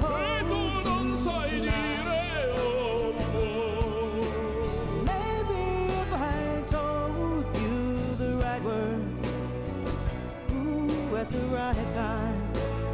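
Background song: a singer holding long notes with a wide vibrato over a steady low accompaniment.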